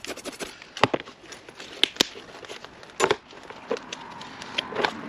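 Scissors cutting through a plastic flower pot, the plastic giving a few sharp, irregular snaps and crackles. The pot is being cut away because the old soil inside has set hard around the roots.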